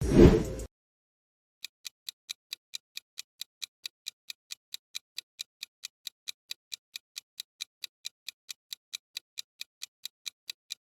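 Quiz countdown-timer sound effect: a short whoosh, then steady clock-like ticks at about four or five a second.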